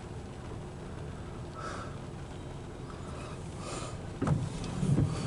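Loaded coal hopper cars rolling past on the rails: a steady low rumble of wheels, with two louder low thumps about four and five seconds in.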